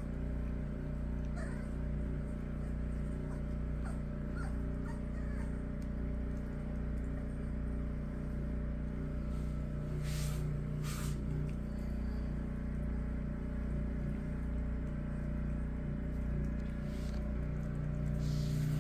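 Cockapoo puppies eating raw minced beef from a tray, with soft wet chewing and smacking and scattered small clicks, over a steady low hum.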